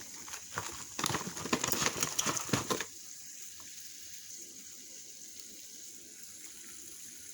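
Yellow beeswax pellets scooped with a tablespoon and tipped into a double boiler: a spell of quick small clicks and rattles lasting about two seconds, then only a faint steady hiss.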